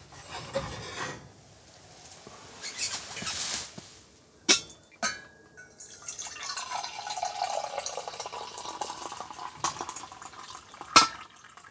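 Liquid pouring and cups or dishes clinking, as when coffee is being made: two sharp clinks, then a longer pour whose pitch slides down and back up.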